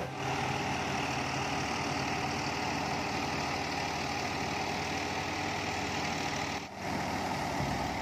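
Tractor diesel engine running steadily under load, driving a wheat thresher through its PTO shaft, the engine and the thresher's drum making one continuous mechanical drone. A short dip in the sound comes about two-thirds of the way through.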